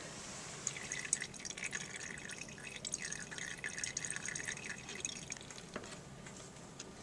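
Rubbing alcohol trickling and dripping into a plastic bottle onto a layer of vegetable oil, a patter of small drops from about a second in until about five seconds in. It is the top, least dense layer being added to a liquid density column.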